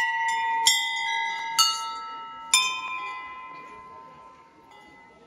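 Brass temple bells hanging from a pole are rung by hand: four strikes about a second apart. The bells are of different pitches, and each rings on and slowly dies away.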